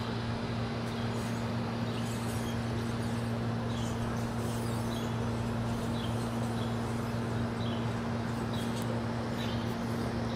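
Steady low mechanical hum under an even hiss, with short, high, slightly falling chirps from a small animal about once a second, irregularly spaced.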